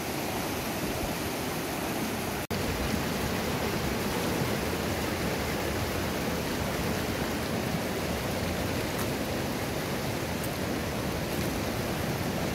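Shallow mountain river rushing over rocks and riffles, a steady rush of water. It cuts out for an instant about two and a half seconds in.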